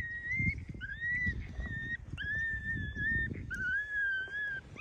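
Electronic predator caller playing a high, whining distress call, repeated about once a second. Each cry rises at the start and is then held, over a low rumbling noise.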